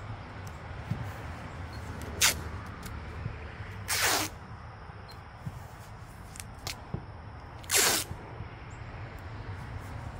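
Masking tape being pulled off the roll in three quick rips: a short one about two seconds in and longer, louder ones around four and eight seconds in. A low steady rumble runs underneath.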